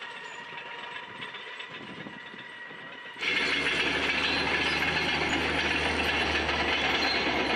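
Firefighting helicopter flying over the fire: a loud, dense, steady rotor and engine noise with a low hum underneath, cutting in suddenly about three seconds in. Before that there is a quieter noisy stretch with a faint steady whine.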